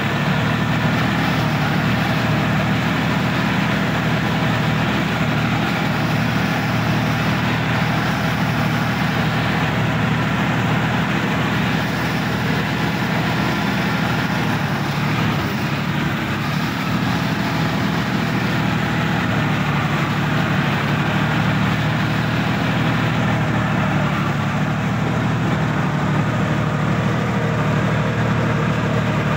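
Sonalika DI-50 RX tractor's diesel engine running at a steady speed, heard from the driver's seat.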